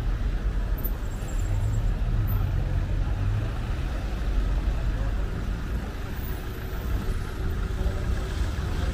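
City street traffic: a steady low engine rumble from nearby motor vehicles, with voices in the background.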